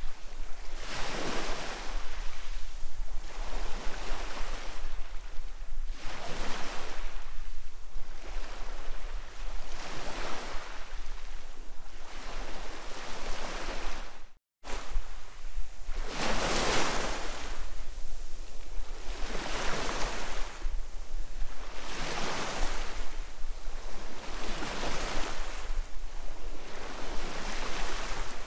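Small sea waves breaking and washing up a pebble shore, one wash of foam about every two seconds. There is a brief cut to silence about halfway through.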